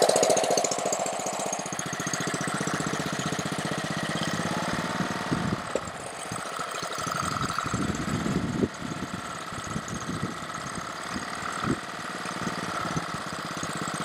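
Small Honda engine on a pressure washer running on choke, steady at first and then running unevenly about five seconds in. It runs on only with the choke on, which the owner takes for a carburetor problem.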